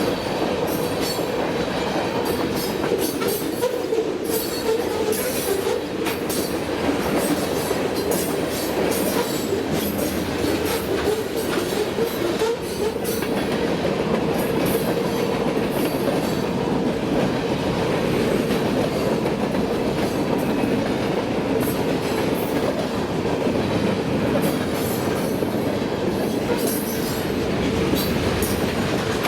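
Freight train cars rolling past, wheels clicking over the rail joints in an uneven rattle, with a steady hum of wheels on rail throughout.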